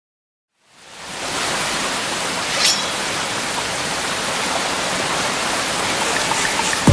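A steady hiss of noise, like static or rushing water, fading in over the first second and holding level, with a brief brighter swish a little under three seconds in.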